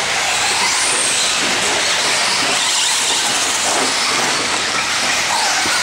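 Electric Traxxas Slash RC short-course truck driving on a dirt track, its motor and gears whining up and down in pitch as it speeds up and slows, over a steady loud hiss of hall noise.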